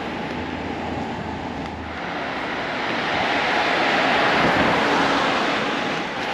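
Road traffic: the tyre and engine noise of passing cars. It swells to a peak about four and a half seconds in, then eases off, with a low hum that fades out about two seconds in.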